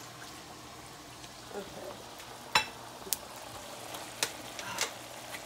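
Whiskey and chopped onions simmering and sizzling in a skillet, a steady hiss broken by a few sharp clicks in the second half.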